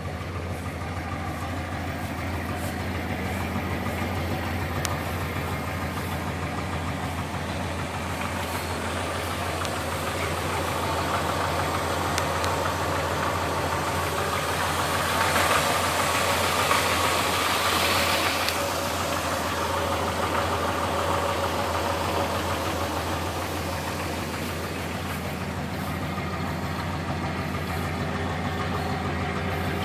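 1974 dump truck's engine idling steadily, with a louder rush of noise for a few seconds around the middle.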